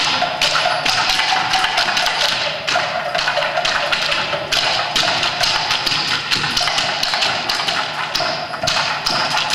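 Long bamboo planting poles tapped and thumped on a wooden stage floor in a quick, steady rhythm, the beat of the talapak corn-planting dance, over accompanying music.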